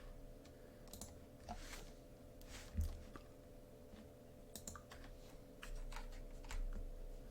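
Scattered, faint clicks of a computer keyboard and mouse, a key or click every second or so, over a steady low hum.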